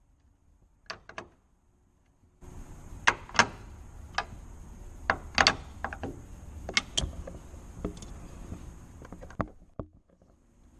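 A 10mm socket on a long extension bar is worked on the door mirror's mounting nut inside a car door: irregular sharp metallic clicks and knocks over a steady whir. The whir starts about two seconds in and stops near the end.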